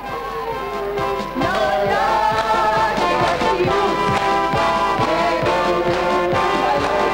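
Festive music with brass and singing over a steady beat, swelling louder about a second and a half in.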